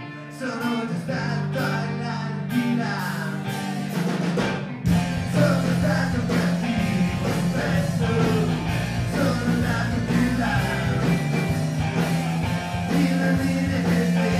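Live rock band playing: electric guitars with a singing voice, and about five seconds in the full band comes in, fuller and louder with heavy bass and drums.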